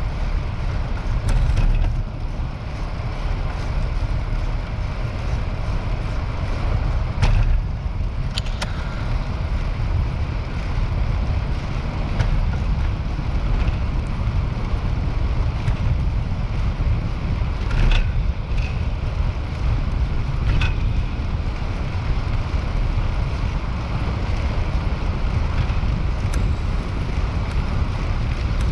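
Wind buffeting the microphone of a camera on a moving bicycle, a steady low rumble mixed with tyre noise on pavement. There are four short sharp clicks: two about a third of the way in and two about two thirds of the way in.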